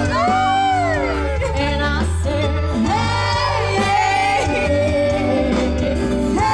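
Live band playing amplified music with a singer, over a steady, heavy bass.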